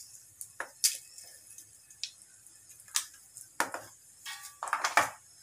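Mustard seeds and urad dal being added to hot oil in a clay pot: a handful of sharp clicks and clinks of a spoon and utensils against the pot, one ringing briefly about four seconds in, the loudest near the end.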